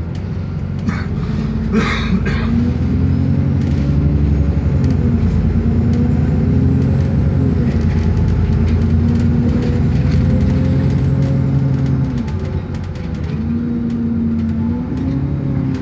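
A bus in motion heard from inside the passenger cabin: engine and road rumble, the engine note rising and then dropping back several times as the bus accelerates through its gears. A short burst of noise about two seconds in.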